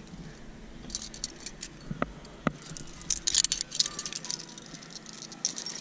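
Carabiners and quickdraws on a climbing harness jangling and clinking as the climber moves up the rock, with two sharp clicks about two seconds in and the jingling densest just after.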